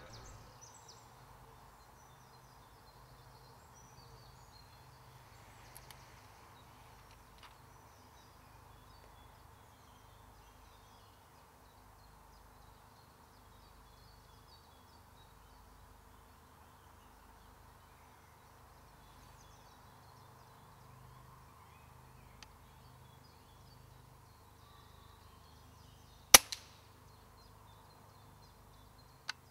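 A single shot from a Daystate Huntsman pre-charged air rifle about 26 seconds in: a sharp crack followed at once by a fainter knock, over a quiet woodland background. A small click comes near the end.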